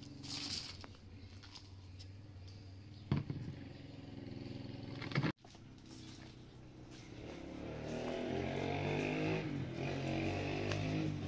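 A motor running with a steady low hum, with two sharp knocks in the first half; after a brief break it grows louder and fuller.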